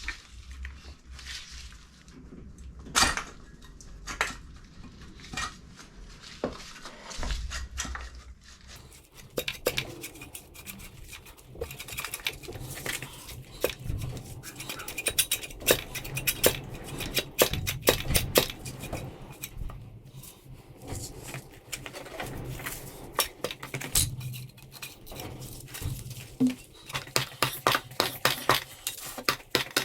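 Metal hand tools and engine parts clinking, tapping and scraping during a motorcycle engine teardown: a few scattered knocks at first, then rapid busy clusters of clicks from about a third of the way in.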